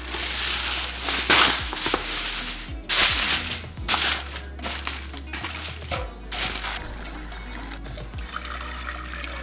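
Background music with a steady bass line, over crinkling aluminium foil being pressed into a baking pan in the first half. Near the end, tap water runs into a saucepan with a steady hiss.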